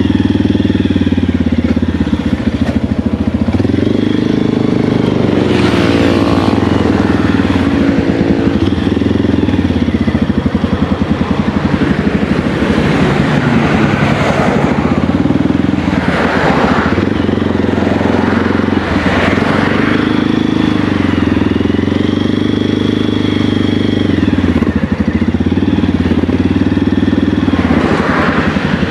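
Motorcycle engine running under way, its pitch rising and falling every few seconds as the throttle changes. Rushes of noise come and go several times.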